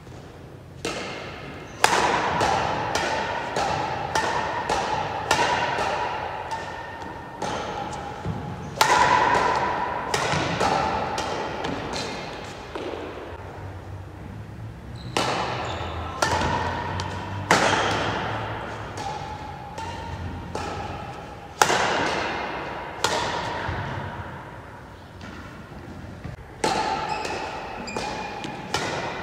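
Badminton racket strings striking a shuttlecock again and again in a rally, each hit a sharp knock that rings in the large hall. Music plays along underneath.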